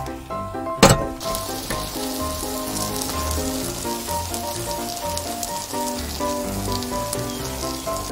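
Fish cake and cheese sizzling and crackling in a hot stovetop waffle pan, after a sharp metal clank of the pan about a second in. Background music plays along.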